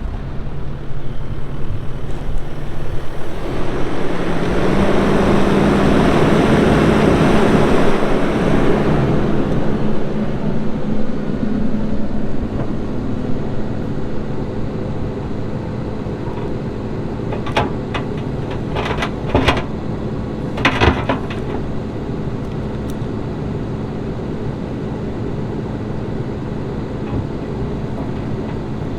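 Kubota SVL95-2s skid steer's diesel engine just started, revving up about four seconds in and running louder for several seconds before settling to a steady run. A few sharp knocks come later in the steady stretch.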